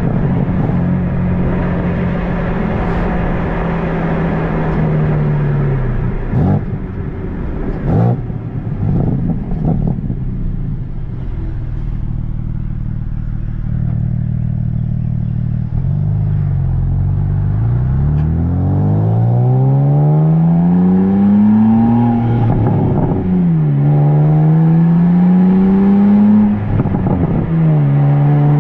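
2023 BMW M2's stock exhaust in Sport Plus mode, heard from between the exhaust tips: its twin-turbo inline-six runs steadily, then eases off with two sharp cracks. Later it accelerates, the pitch climbing through the gears with two quick upshifts near the end.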